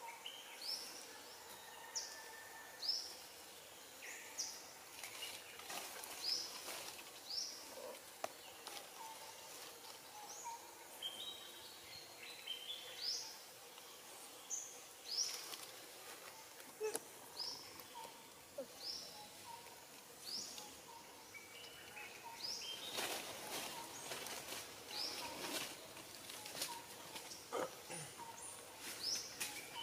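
A bird calling over and over, short high chirps about once a second, in forest ambience. Occasional rustles and snaps mix in, thickest a little over twenty seconds in.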